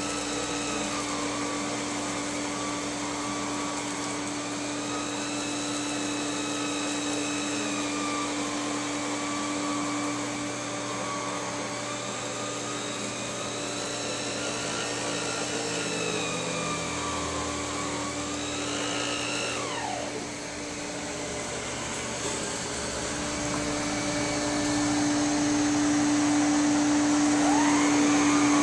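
A vacuum cleaner motor runs steadily with a whine. About two-thirds of the way through its pitch falls away and the sound dips, then the whine rises again and the motor runs louder near the end.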